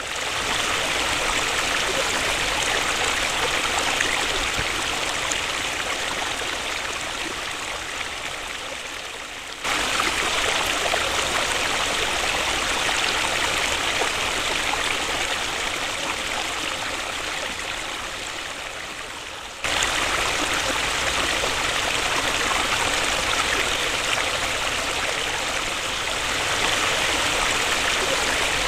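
Waterfall: a steady rush of falling water, its level stepping up suddenly twice, about ten seconds apart.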